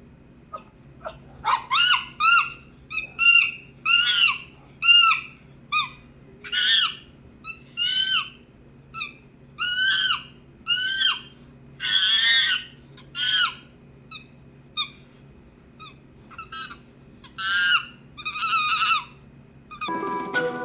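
Recorded monkey calls: a long series of short, high-pitched, arching hoots and screeches, about twenty in all. Piano music comes in near the end.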